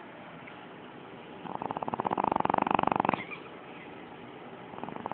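Puppy snoring in her sleep: one loud, rattling snore lasting under two seconds, starting about a second and a half in, and a weaker one starting near the end.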